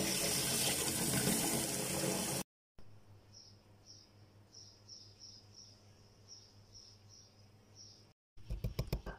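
Tap water running steadily onto diced chicken in a steel bowl as it is rinsed, cut off after about two and a half seconds. A quiet stretch follows with faint, regularly repeated high chirps. Near the end, a pestle starts pounding garlic in a mortar with quick, even strokes.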